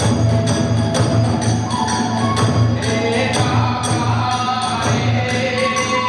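Kagura hayashi accompaniment: a taiko drum and clashing tebyoshi hand cymbals keep a quick, steady beat of about three strikes a second under a bamboo flute melody.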